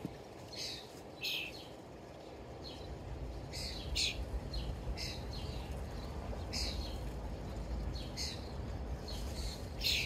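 Wild birds chirping outside a window screen: a run of short, high chirps, about one every half second, over a low rumble that comes up about three seconds in.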